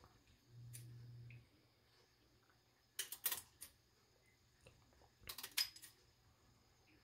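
Faint, light clicks and knocks of kitchen items being handled, in two short clusters about three and five and a half seconds in, after a brief low hum near the start.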